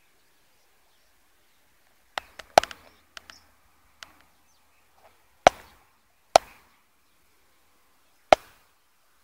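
A run of sharp, short knocks, about seven in all at irregular gaps, starting a couple of seconds in. The loudest come near the middle and near the end.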